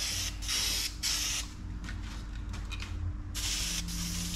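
Aerosol spray can spraying paint in several short hissing bursts with brief gaps between them. The can is running low.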